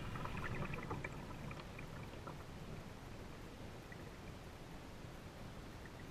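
Faint water sounds around a kayak on the river, a low steady wash, with a few faint light ticks in the first couple of seconds.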